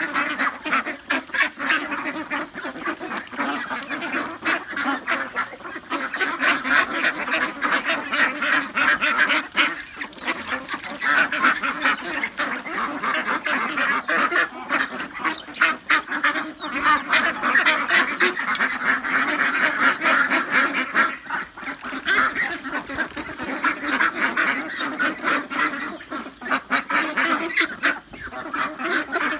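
A large flock of forty-day-old domestic ducks quacking continuously, many calls overlapping into a dense chorus with a few brief lulls.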